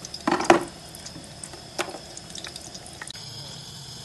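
Sliced onions in hot cooking oil in a pot: a cluster of splashes and clicks about half a second in, then scattered light pops and ticks over a faint steady hiss.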